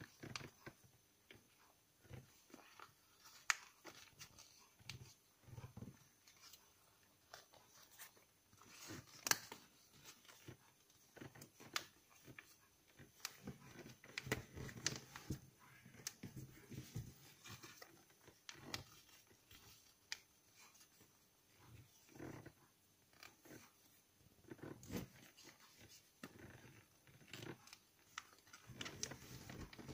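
A square sheet of paper being folded and creased by hand: faint, irregular crinkling and rustling with sharp little crackles as the folds are pressed.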